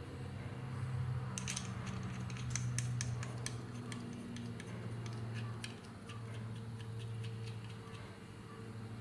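Irregular small metallic clicks and ticks, a few a second and thickest in the first half, as a machined steel puller tool is handled and turned on a screw compressor's input shaft. A steady low hum runs underneath.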